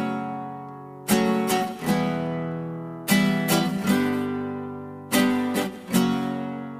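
Background music: acoustic guitar strumming chords, a fresh group of strokes about every two seconds, each chord ringing out and fading.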